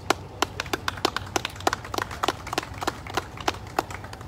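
A small group of people applauding: sparse, irregular hand claps that trail off near the end.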